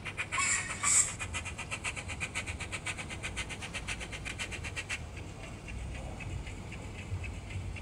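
Zimo sound decoder in a Bachmann OO9 Quarry Hunslet model steam locomotive playing rapid, even steam-engine chuffs through its tiny speaker as the loco runs. A brief loud hiss comes about a second in, and the chuffing turns fainter about five seconds in.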